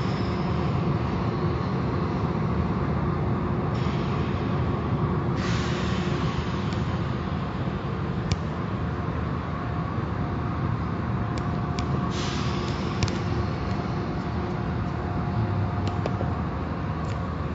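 Automatic car wash machinery running with a steady low rumble, two bursts of high hissing about four seconds and twelve seconds in, and a few sharp clicks.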